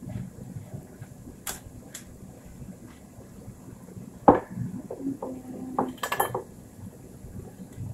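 Cookware and utensils being handled: a few light clicks, then one sharp knock about four seconds in, followed by smaller knocks and a quick run of clinks around six seconds in.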